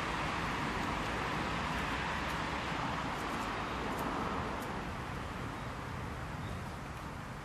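Steady rushing outdoor background noise with a few faint ticks, easing a little in the second half.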